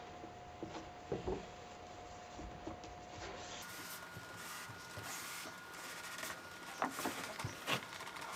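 Rope being wrapped around a PVC pipe: rubbing and handling noise with scattered light knocks, loudest about a second in and again near the end.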